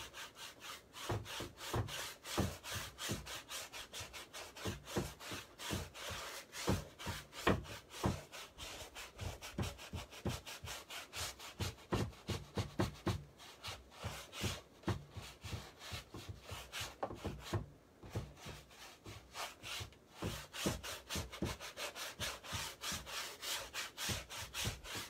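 Paint being scrubbed onto a canvas in quick back-and-forth strokes, a dry, scratchy rubbing at about two to three strokes a second, pausing briefly about two-thirds of the way through.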